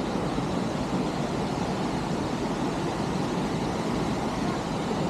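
Waterfall rushing close by: a steady, unbroken wash of falling water.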